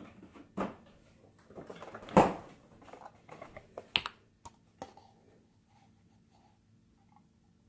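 Handling noise: several knocks and clicks, the loudest a thump about two seconds in, as the camera is moved and a paper carton and a plastic cup are handled. After that only faint small sounds are left.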